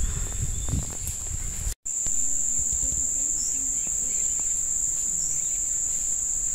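Insects chirring in a steady high-pitched drone that doesn't let up, with a low rumble under it during the first two seconds.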